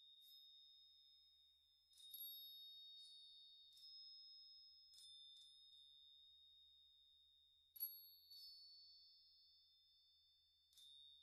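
Faint background music of sparse, high bell-like notes, each struck and left ringing, with a new note every second or two.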